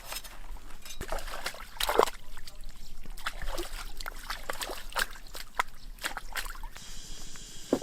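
Irregular splashing and sloshing of water, with scattered sharp knocks, the strongest about two seconds in.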